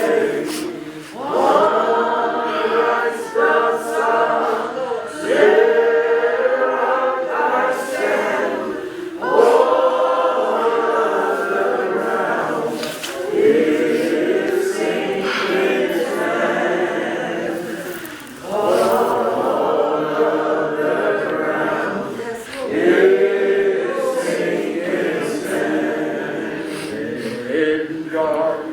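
A choir singing, in phrases about four seconds long with short breaks between them.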